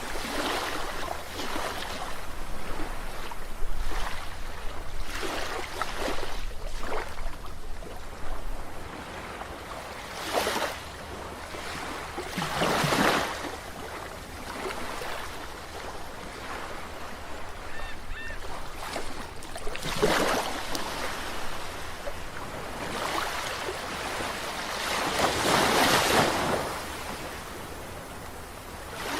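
Ocean surf: waves breaking and washing ashore in a continuous wash, with several louder waves swelling and fading through it, the longest near the end.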